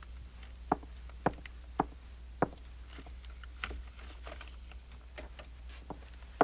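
Footsteps: four distinct steps about half a second apart, then fainter scattered taps and knocks, over a steady low hum.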